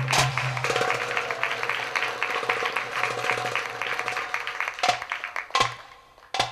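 Darbuka (Egyptian goblet drum) playing a fast roll of rapid strokes with a low ringing tone, which fades away about five seconds in. It gives way to three single sharp strokes, each a little under a second apart.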